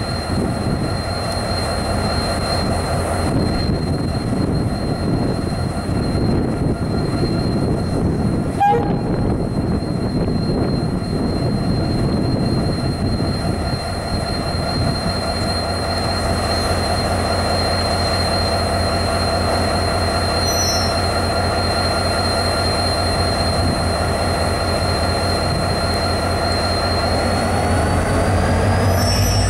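NIR 111 Class diesel locomotive's EMD two-stroke engine running steadily as the loco creeps along with a rake of ballast hoppers, with a thin high whine over the engine throb. A single sharp knock comes about nine seconds in, and near the end the engine note grows louder as the whine rises in pitch.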